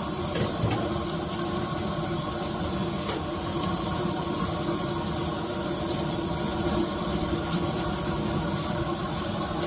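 Steady hissing rumble of a propane deep fryer's burner running, with a faint hum and a few light ticks.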